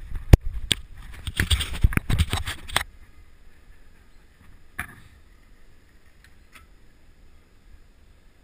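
A quick, irregular run of loud knocks and clicks for about three seconds, the sharpest just after the start, then quiet road noise with a few faint ticks.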